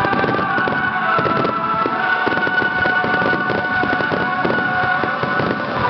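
Large starmine fireworks barrage fired at close range: a dense, continuous run of bangs and crackling shell bursts, one upon another.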